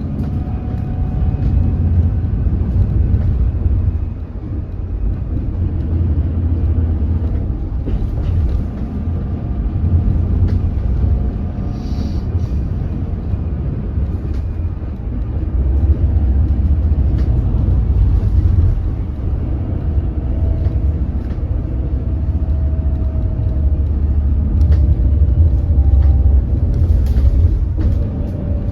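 Cabin sound of a 2025 hydrogen fuel-cell electric bus under way: a steady low road rumble with a faint electric drive-motor whine that rises and falls in pitch as it speeds up and slows. The motor is said to make an abnormal noise.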